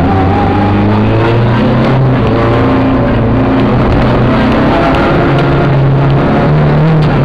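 Rally car engine at speed, heard from inside the cabin, its pitch shifting up and down with throttle and gear changes over a constant rumble of road and tyre noise.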